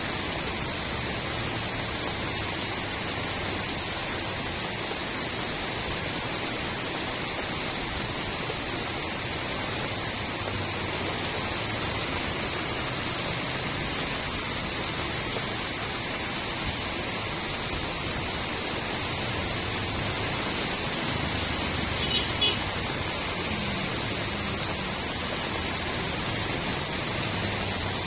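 Steady rain falling on a street, a continuous even hiss with running water gurgling. A brief cluster of sharp ticks sounds about three-quarters of the way through.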